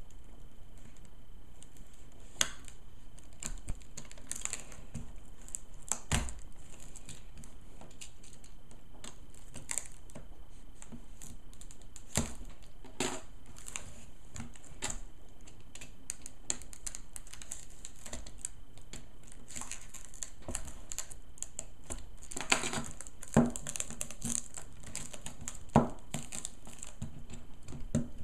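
Clear rigid plastic packaging crackling, clicking and snapping as it is cut and pried at with a small knife and worked by hand. The clicks come irregularly, with a cluster of louder sharp snaps near the end.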